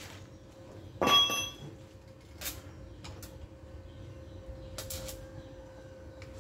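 Steel parts and hand tools clinking while a truck bumper is being fitted: one loud metal clink that rings briefly about a second in, then a few lighter clicks and taps.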